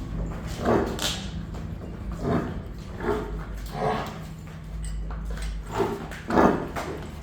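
A dog barking, about seven short barks at uneven intervals, over a steady low hum.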